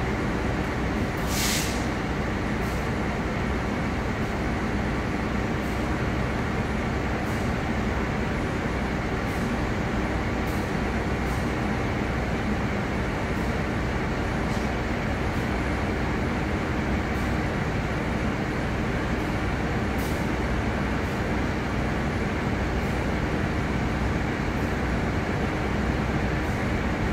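Steady running of a train's diesel engine, a low, even rumble with a hum in it. A short hiss of air comes about a second and a half in.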